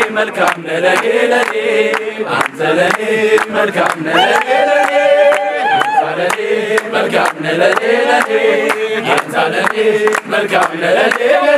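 A group of men singing together in a chant-like song while clapping their hands in rhythm, with one held sung note a little past the middle.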